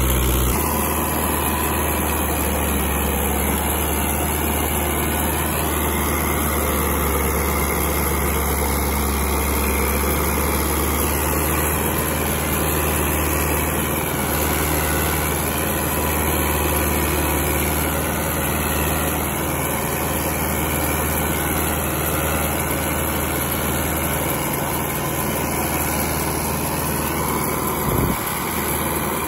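Massey Ferguson 385 tractor's diesel engine running steadily, with a brief knock near the end.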